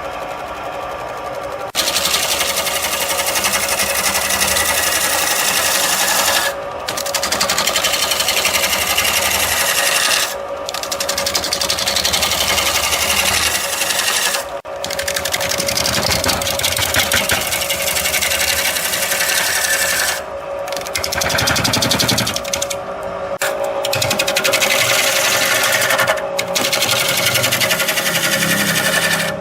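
Wood lathe spinning. About two seconds in, a turning tool starts cutting into the wood with a fast, even rattle, and the cut stops briefly several times between passes.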